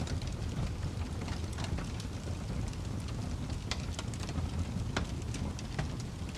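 Wood fire crackling in a fireplace: a steady low rumble of burning with irregular sharp pops and crackles, the loudest pop about five seconds in.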